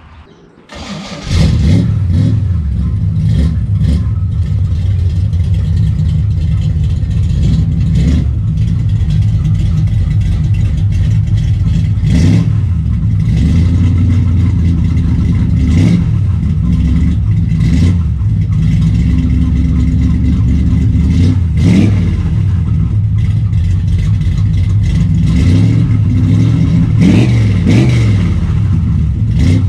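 1955 Pontiac's engine catching about a second in and then running steadily, blipped up in revs several times, after a long-parked 'will it start' attempt.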